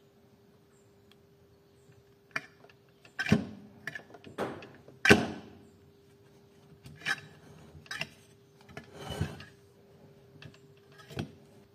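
A series of irregular knocks and scraping rubs, as of tools or parts being handled and set down on a workbench, over a faint steady hum. The loudest knocks come about three and five seconds in.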